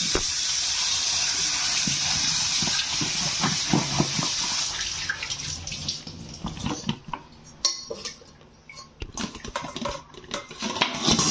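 Kitchen tap water running steadily onto raw banana pieces in a steel colander, fading out about five seconds in. After it, scattered knocks and clinks as the wet pieces and metal vessels are handled, with the banana going into a pressure cooker.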